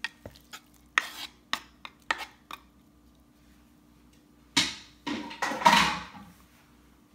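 Kitchen knife scraping and tapping diced raw chicken off a bamboo cutting board into a ceramic bowl: a quick run of sharp clicks and knocks. After a pause, a louder scraping clatter lasting about two seconds.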